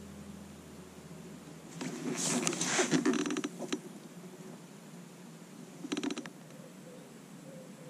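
Handling noise close to the camera: rustling, scraping and clicks as a hand sets up the bite camera beside the rods, in a longer spell about two seconds in and a short one around six seconds.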